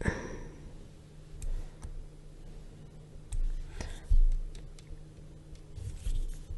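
Stylus clicking and tapping on a drawing tablet while a rectangle is drawn: scattered light clicks with a few low thumps, the heaviest about four seconds in, over a faint steady low hum.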